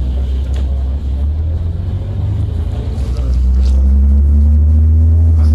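City bus engine and road rumble heard from inside the passenger cabin, a steady low drone. About three seconds in the engine note rises and gets louder as the bus accelerates.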